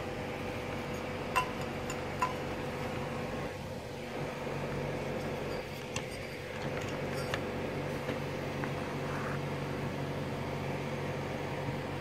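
A few light clicks and clinks, about four spread over the stretch, from parts of an opened welder being handled, over a steady background hum.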